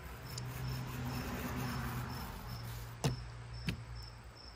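Catfish skin being torn away from the fillet by hand, a soft rising tearing noise for a couple of seconds, followed by two sharp clicks about three seconds in. Crickets chirp steadily behind it, about three chirps a second, over a low steady hum.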